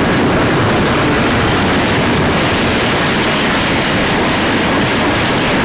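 Union Pacific double-stack container train rolling past at close range: a loud, steady rush and rumble of wheels on rail.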